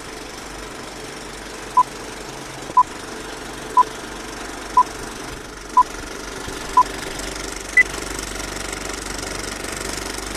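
Old-film countdown leader: a steady film-projector rattle that slowly grows louder, with short beeps once a second, six at one pitch and then a seventh, higher beep.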